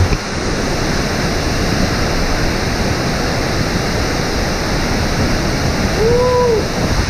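Gljúfrabúi waterfall pouring into its enclosed rock gorge, heard from right beside the falls: a loud, steady rush of falling water. Near the end there is one short rising-and-falling tone.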